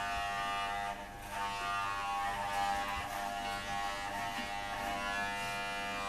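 Electric hair clippers buzzing steadily while cutting hair, with a short dip in level about a second in.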